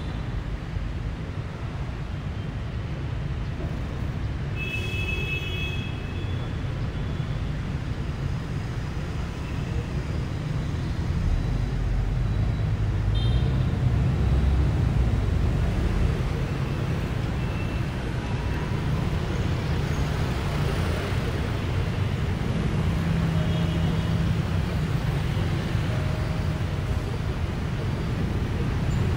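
Road traffic heard from the open top deck of a moving double-decker bus: a steady low rumble of the bus and passing cars and motorbikes, swelling for a few seconds midway, with a few short high-pitched beeps.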